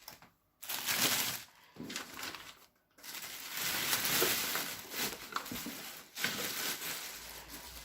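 Packaging crinkling and rustling as it is handled and pulled open, in several spells with short pauses between, the longest in the middle.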